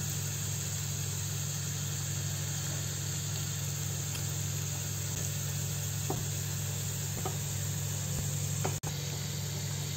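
Chopped garlic and a dried red chilli frying in ghee in a small tadka pan, a steady gentle sizzle as the garlic begins to brown, over a constant low hum, with a few faint clicks.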